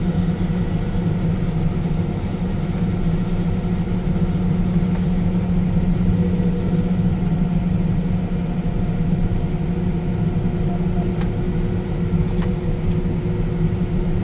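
John Deere S770 combine running steadily: a constant engine drone with a strong, even low hum.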